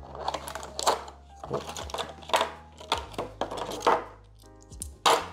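Handling of a small plastic camera tripod and its mount: a run of brief scraping and rustling sounds, then a sharp click a little before the end. Soft background music plays underneath.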